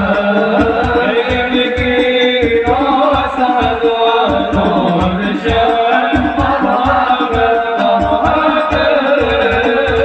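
Sholawat, Islamic devotional songs, sung by a group through a PA system, with hand drums keeping a steady beat.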